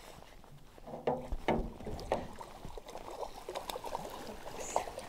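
Water splashing and sloshing at the side of a small boat as a hooked rainbow trout is played and brought to the net. There are several sharp, loud splashes between one and two seconds in, then smaller sloshing.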